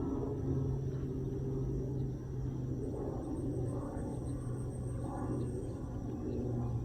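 Steady low rumble of outdoor background noise, with a faint high-pitched insect chirping in even pulses for a few seconds in the middle.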